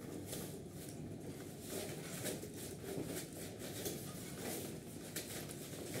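Faint, irregular light clicks and rustles of plastic as the front panel of a split AC indoor unit is handled and lifted.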